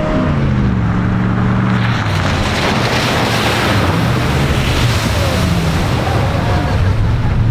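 Car engine revving hard, its pitch rising and falling, as the car drives through a flooded mud pit, with a rush of water spray that is strongest from about two to four seconds in.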